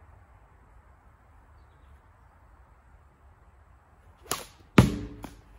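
A sling cracking as the projectile is released, then about half a second later a louder, sharp hit with a short ringing as the projectile strikes the target, a scoring hit.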